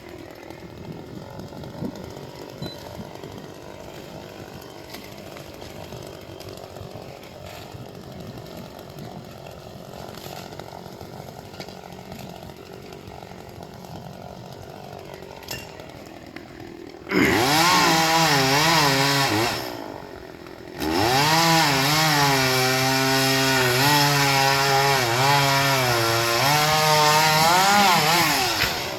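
Two-stroke Echo CS-400 chainsaw. It runs low at first, then is opened up to full throttle for about two seconds, drops back briefly, and runs at full throttle again for about seven seconds. In that last stretch the pitch sags and recovers as the chain cuts through the palm trunk.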